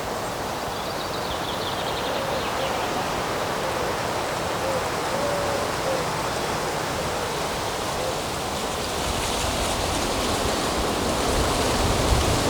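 Steady wind noise outdoors: a breeze through the trees and rushing on the microphone, with low buffeting that grows stronger near the end.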